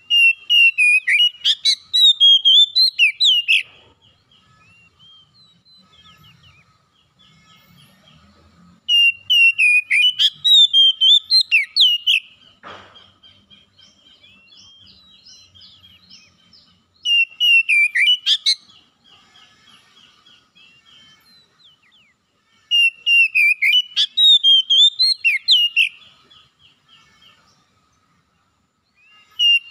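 Oriental magpie-robin (kacer) singing: four loud bursts of rapid, varied whistled notes a few seconds apart, with softer twittering in the pauses between them.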